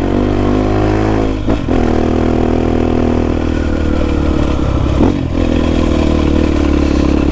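Honda XR250 Tornado's single-cylinder four-stroke engine running hard through a loud Belparts aftermarket exhaust, pulling up a climb. The engine note breaks briefly twice, about a second and a half in and again about five seconds in, then picks up again.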